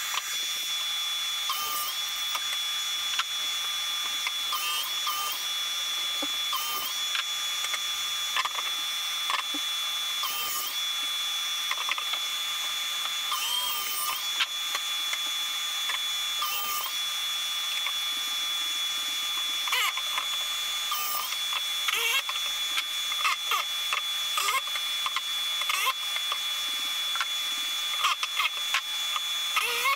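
Miter saw cutting pallet wood: a steady high motor whine that sags briefly in pitch several times as the blade bites, with knocks and clatter of boards being handled.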